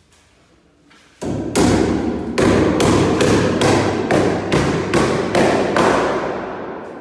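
A quick run of about a dozen hammer blows, two or three a second, starting about a second in, with the sound hanging between blows and dying away gradually near the end.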